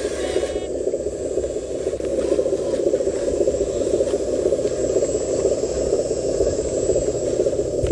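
Electric motor and gear drive of a radio-controlled truck, running steadily as it crawls along loaded.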